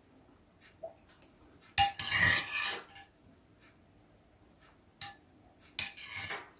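Metal spoons clinking and scraping in ceramic bowls as people eat: a loud clink and scrape about two seconds in, then a lighter click and another scrape near the end.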